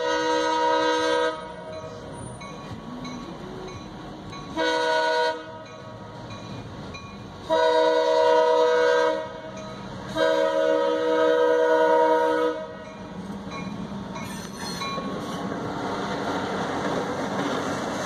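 Diesel locomotive horn sounding four chord-like blasts for a grade crossing, the second short and the last two longer. After the last blast the rumble of the locomotives and rolling train grows steadily louder as they reach the crossing.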